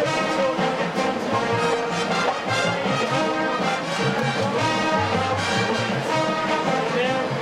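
College marching band playing a brass-heavy rock arrangement at full volume, with trumpets and trombones carrying sustained chords.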